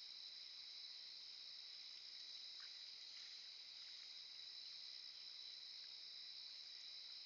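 Faint, steady chorus of insects chirring, high-pitched and unbroken, the kind of late-summer cricket chorus heard in fields.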